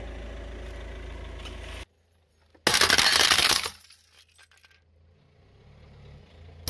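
The glass cover and plastic case of a quartz wall clock shattering under a car tyre: one loud crunching break lasting about a second, a little before the middle. Before it, a steady low hum from the car.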